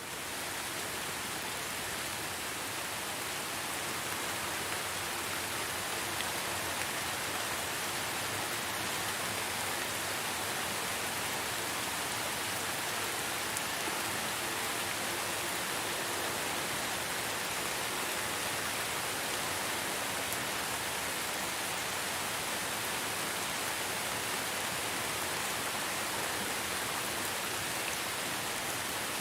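Steady rain falling: an even, unbroken hiss with no single drops or gusts standing out.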